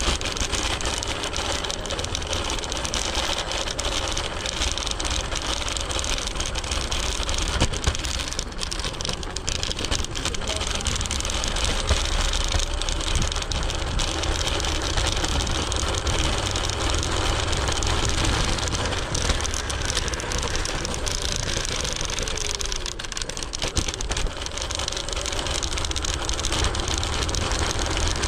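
Riding noise of a Segway Ninebot ES4 electric kick scooter moving along a city street: a steady low rumble and road hiss, with frequent small clicks and rattles.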